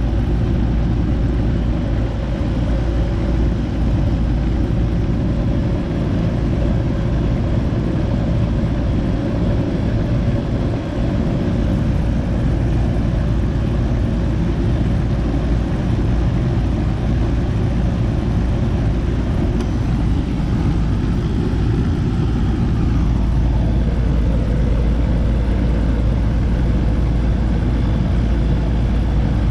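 Goodman air conditioner's outdoor condenser unit running, fan and compressor both on, as a loud, steady low air noise. Its high-side pressure and temperature are running somewhat high, from a dirty condenser coil.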